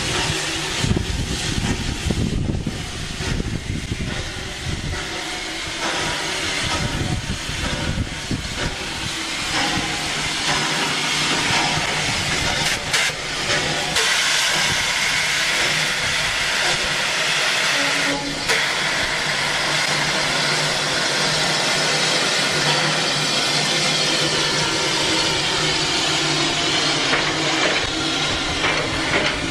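Rio Grande Southern #20, a 4-6-0 steam locomotive, rumbles unevenly as it creeps along. About halfway through it settles into a loud, steady hiss of escaping steam while it stands.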